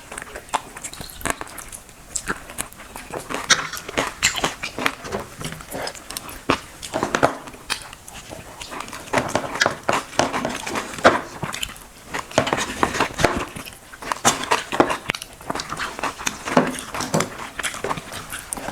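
Close-up eating sounds of rice soaked in water and fried fish being eaten: rapid wet smacking and chewing clicks, many per second, with brief pauses between mouthfuls.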